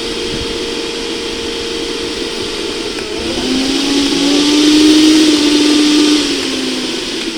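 Electric mixer grinder's motor running with a steady whine. About three seconds in, its pitch drops and it grows louder for about three seconds, then eases back near the end.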